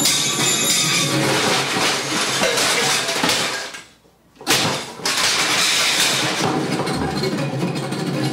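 Harsh noise music: a dense, clattering wall of noise with smashing and clinking textures. It fades out briefly about four seconds in, then returns with a sudden loud hit.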